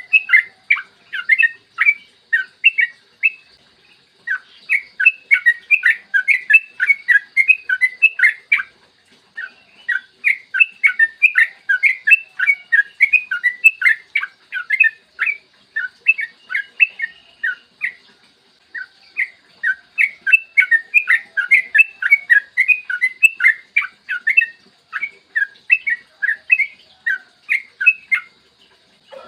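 Yellow-vented bulbul (trucukan) singing long, rapid runs of short chattering notes. Each phrase lasts several seconds and is split from the next by brief pauses.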